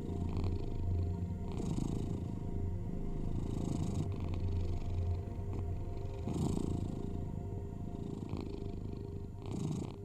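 Cat purring in slow, even cycles, each breath swelling about every two seconds. A steady low tone of binaural sounds runs underneath.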